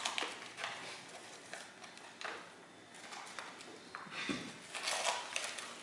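Paper rustling and crinkling in irregular bursts as a small paper-wrapped, taped package is pulled open by hand.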